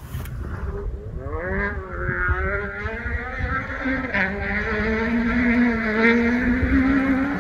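Peugeot 208 R2 rally car's naturally aspirated four-cylinder engine revving high under hard acceleration, its pitch sweeping up about a second in and then holding near the top. The engine grows louder as the car approaches.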